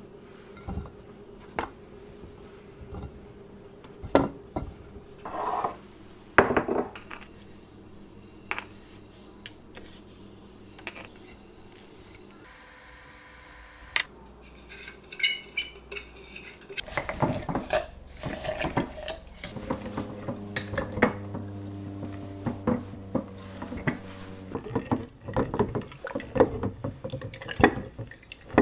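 Glass jars clinking and knocking as they are handled, with a steady pouring hiss of sugar running into a jar of grapes partway through. After that comes a long run of knocks and squishes as a wooden stick mashes the grapes inside the glass jar.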